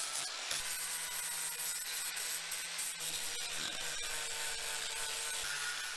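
Handheld rotary power tool, a Dremel, running steadily while grinding and sanding fig wood, cleaning out bark and ant-eaten rotten wood.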